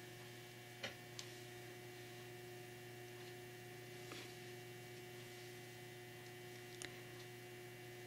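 Steady low electrical hum, with a few faint clicks, one about a second in and another near the end.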